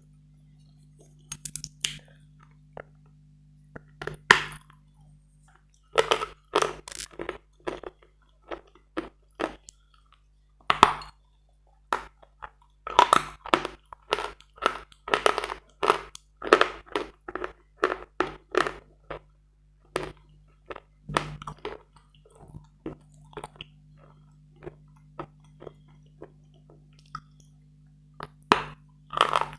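Close-miked bites and crunching chews of hard, wet Bogorodsky chalk: irregular sharp crunches coming in runs, densest about a fifth of the way in and again around the middle, sparser toward the end. A faint steady low hum runs underneath.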